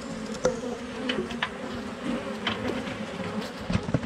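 Honeybees buzzing around an opened Langstroth hive, a steady hum, with a few light clicks.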